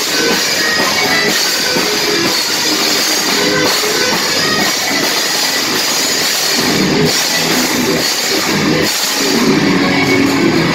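Live rock band playing: electric guitar, bass guitar and drum kit, loud and steady.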